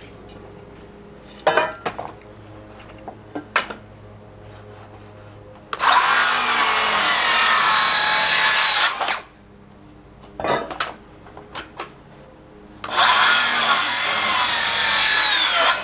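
Power saw cutting pallet wood twice, each cut about three seconds long, the motor's whine sagging under load. A few short knocks come between the cuts.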